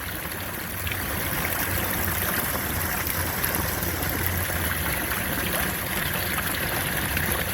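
Steady splashing and trickling of water on the koi pool's surface, with a low steady hum underneath.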